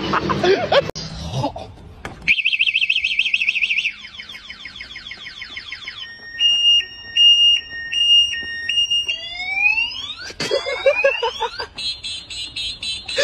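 An electronic alarm siren steps through its tone patterns, changing every couple of seconds: a warbling tone, fast repeated sweeps, a high-low two-tone beep about twice a second, then rising whoops, as a multi-tone car alarm does. The man's voice and laughter are heard briefly at the start.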